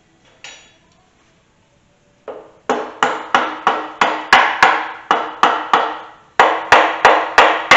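Mallet blows on the aluminium timing cover of a Pontiac 350 V8, knocking the stuck cover loose. The blows come about three a second, each with a short ring: about a dozen, a short pause, then five more.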